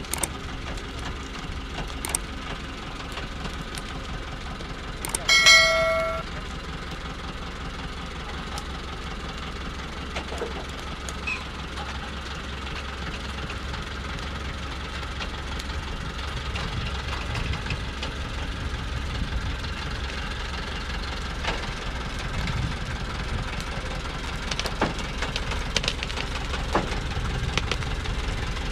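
Thaco truck's diesel engine labouring as the truck crawls up a muddy slope under a heavy load of acacia logs, growing a little louder in the second half, with scattered knocks and clicks. A brief loud high tone sounds once about five seconds in.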